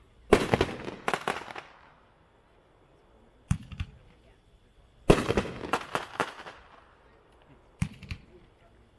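Bone Crusher consumer fireworks cake firing shells a few seconds apart. Single sharp reports alternate with louder breaks that trail into rapid flurries of crackling pops.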